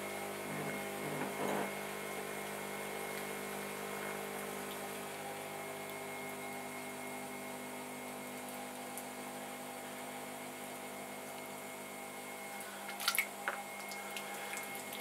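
Electric pottery wheel humming steadily while wet hands squeeze and cone spinning clay, with a soft, watery squelch of slurry. A couple of sharp wet slaps come near the end.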